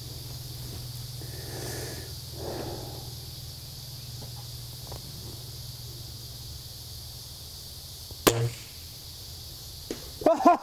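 A single shot from a .22 Walther LGU Varmint spring-piston air rifle about eight seconds in: a sharp crack with a brief low thump right after it.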